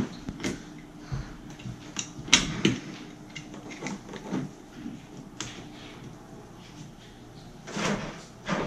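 Scattered light clicks and knocks of a hand tool and a plastic drain hose being handled while the drain hose is fitted at the back of a dishwasher, with a louder cluster of knocks near the end.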